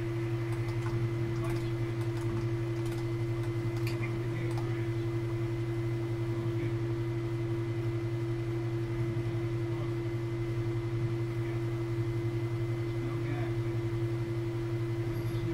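Steady low electrical hum with a higher whine above it, and a few faint clicks in the first few seconds.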